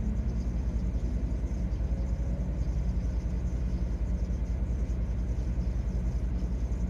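Car engine idling, a steady low rumble with an even pulse, heard from inside the cabin.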